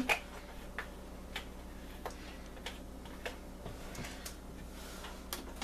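Faint, regular ticking, about three ticks every two seconds, over a low steady room hum.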